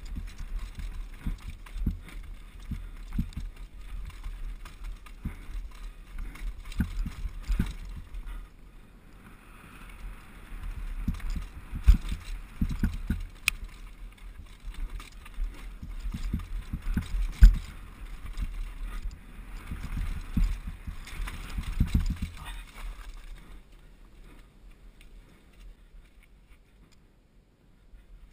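Downhill mountain bike, a Specialized Big Hit, rattling over a rocky trail: dense knocks and clatter from the frame, chain and suspension as the tyres strike rocks, over a steady low rumble. The clatter and rushing noise die down near the end as the bike slows.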